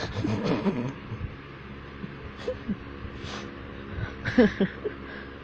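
Faint rustling and handling noise, with a couple of short, soft cries that fall in pitch about four seconds in.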